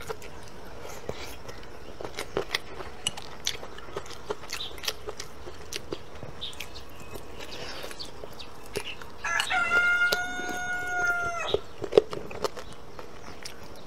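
Close-up eating sounds, with sharp clicks and crunches of biting and gnawing scattered throughout and the loudest snap about twelve seconds in. A rooster crows once, a single held call of about two seconds, starting around nine seconds in.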